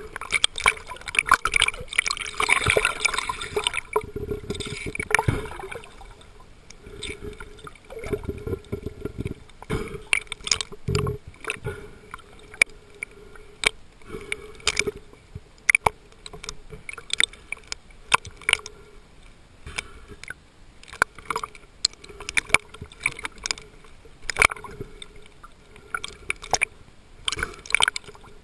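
Underwater recording of water rushing and bubbling around the camera as a snorkeler swims, loudest in the first few seconds. Scattered sharp clicks and crackles run through it.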